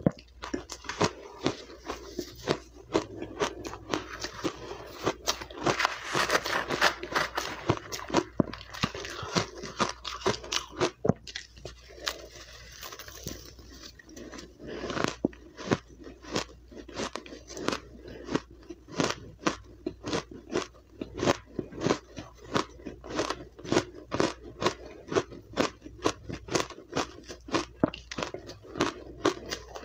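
Refrozen crushed and powdery ice being bitten and chewed, close to the microphone: a steady run of sharp, crisp crunches, several a second.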